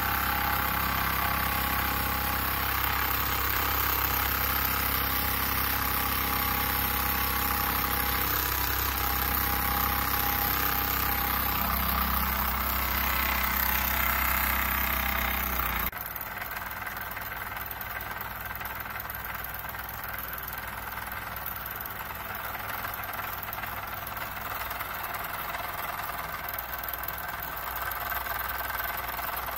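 Jean Comby single-oscillating-cylinder toy steam engine running steadily under steam. About halfway through the sound drops suddenly to a quieter, thinner level.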